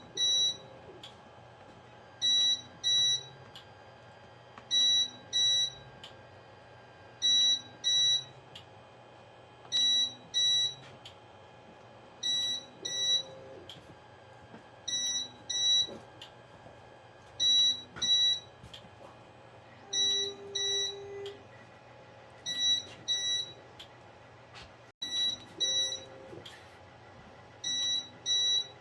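Qidi X-CF Pro 3D printer running its BL Touch auto bed-leveling probe: pairs of short high-pitched tones repeat about every two and a half seconds as it probes point after point, with faint lower mechanical sounds between them.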